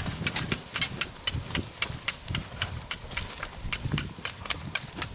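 Small twig-and-kindling campfire crackling: a quick, irregular run of sharp pops and snaps, several a second.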